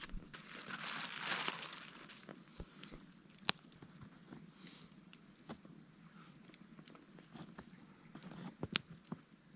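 Campfire crackling and popping, with a brief hissing rush about a second in and a sharp pop a few seconds later.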